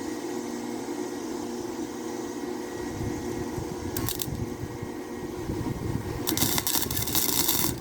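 Welding arc crackling in short tacks: a brief sizzle about four seconds in, then a louder steady crackle for about a second and a half near the end. A steady machine hum runs underneath.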